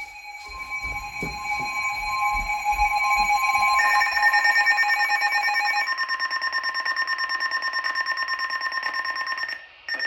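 Electronic weather-radio alert tones, as sounded before an Emergency Alert System severe thunderstorm warning. Steady alert tones come first, and about four seconds in a higher tone joins them. From around six seconds the sound turns into a rapid pulsing alarm, which breaks off briefly just before the end.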